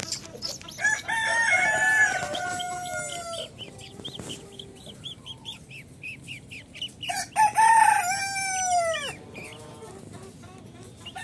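Rooster crowing twice, each crow a long call of two to three seconds that drops in pitch at the end, with a run of short high calls from the caged fowl in between.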